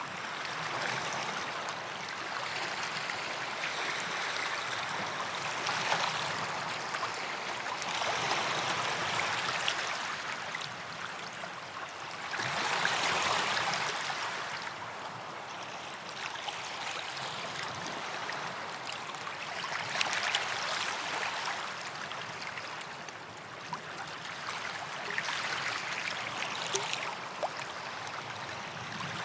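Small sea waves washing onto a sandy beach: a steady hiss of water that swells and ebbs every few seconds, the biggest wash about halfway through.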